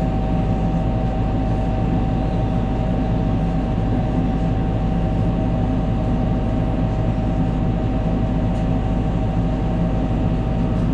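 Tractor engine running steadily, heard from inside the tractor, with a steady higher whine over the low engine note.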